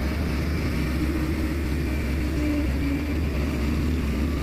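Heavy truck's diesel engine running steadily with a deep, even rumble.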